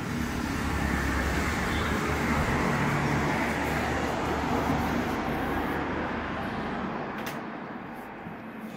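A road vehicle passing by. Its engine and tyre noise swells over the first few seconds, then fades away toward the end.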